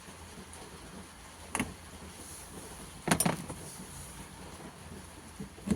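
Sharp plastic clicks and snaps as the inner trim cover of a Honda Accord's trunk lid is pried off its push-in clips: one snap about one and a half seconds in, a quick cluster of them around three seconds, and another near the end.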